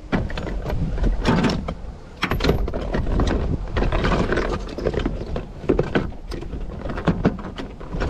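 Metal tools and plumbing fittings clinking and knocking against each other and a plastic tub as a hand rummages through it, in a quick irregular series of clatters.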